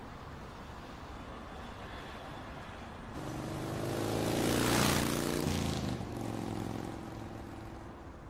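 Motorcycle passing along the street, its engine growing louder to a peak about five seconds in and then fading away.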